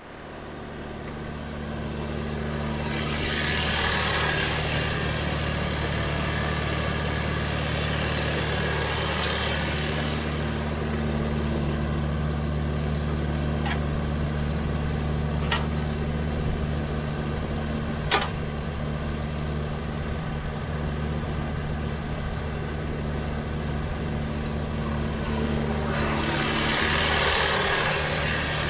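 Diesel engine of a Sany excavator running steadily under load, with three surges of rushing noise from the digging work and three sharp metallic clanks midway, the last the loudest.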